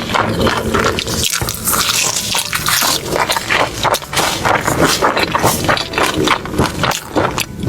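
Close-up wet chewing and mouth sounds of someone eating: irregular smacks and squelches packed closely together.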